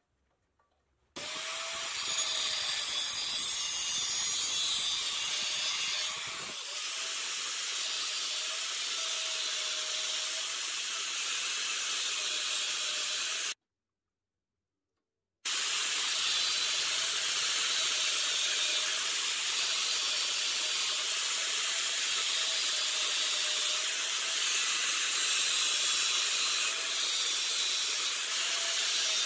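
A workshop tool running continuously with a steady hiss and a faint wavering motor tone. It stops for about two seconds midway, then starts again.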